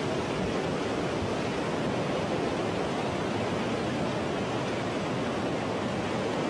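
Steady rush of tsunami floodwater surging through streets and over a seawall: an even, unbroken noise of churning water.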